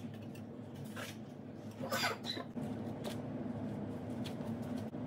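Masonry work on compressed earth blocks: scattered light knocks and scrapes of a trowel, mortar and blocks, with the longest scrape about two seconds in, over a steady low hum.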